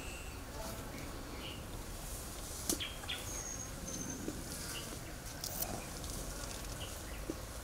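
Faint outdoor ambience of buzzing insects, with a few short high chirps and a few light clicks.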